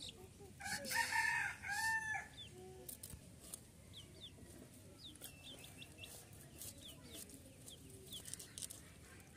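A rooster crowing, a loud call in two parts about a second in. After it come faint short high chirps and light scattered clicks, likely the scraping of small fish being scaled against a blade.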